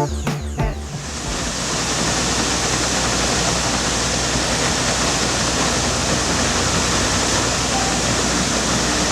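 Water gushing from a ruptured fire hydrant: a loud, even rush that builds up over the first two seconds and then holds steady.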